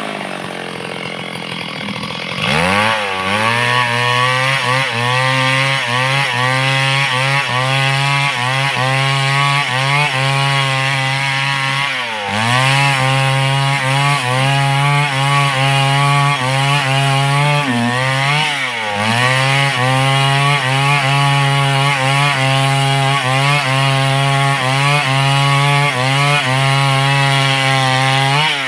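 Large two-stroke chainsaw cutting trembesi wood at full throttle. Its revs are low at the start, pick up about two seconds in, and dip briefly twice more before climbing back to a steady cutting pitch.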